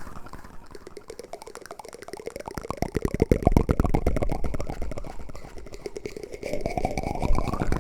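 Wooden spoon used as an ASMR trigger against the microphone, giving a dense run of rapid scratchy clicks. The hollow resonance slides up and down as the spoon moves. It swells midway, softens, and swells again near the end.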